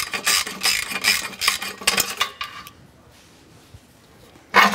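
Metal wrench clinking and rattling on the exhaust header nuts under a Porsche 911 GT3 RS: a flurry of irregular clinks for a couple of seconds, a quieter stretch, then a louder clatter near the end.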